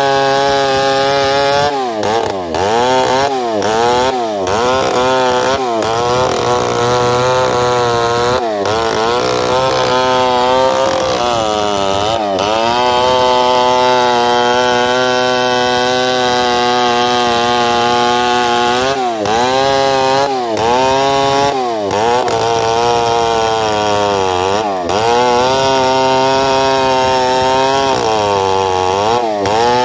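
Stihl 070 two-stroke chainsaw at full throttle, ripping lengthwise along a dead, dry bayur log; the engine is screaming, its pitch sagging under load and recovering several times. The tough, stringy wood keeps the chain from biting, so even a sharp chain cuts as if dull.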